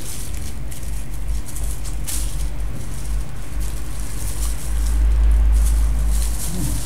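A steady low rumble, strongest about five seconds in, with rustling and handling of packaging close to the microphone.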